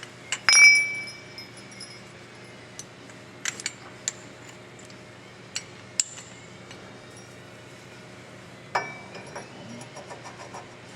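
Steel ball joint press cups and adapters clinking against each other as they are handled and swapped around. There is one ringing clink about half a second in, then scattered light clicks and a duller knock near the end.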